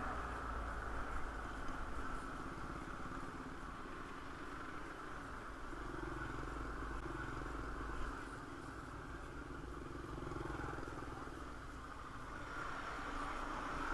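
Road traffic going past, a steady noisy hum that swells as vehicles pass near the start and again near the end.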